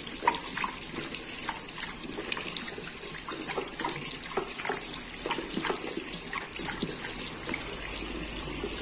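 Tap water running steadily into a ceramic washbasin while a dog drinks from the stream, with irregular small wet clicks from its lapping.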